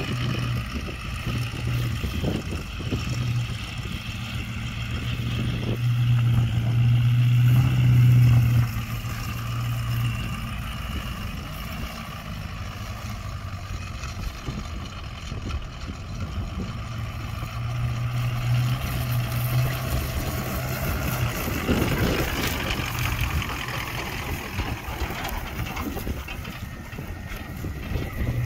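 2003 Ford F-250 pickup's engine running as the truck drives around, a steady low drone that swells louder twice, around six to eight seconds in and again around eighteen to twenty-one seconds.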